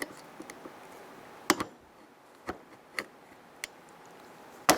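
Irregular sharp clicks and taps of pliers on small metal parts, about eight in all, loudest about a second and a half in and near the end, as an E-clip is pressed onto the interior door handle's pivot pin.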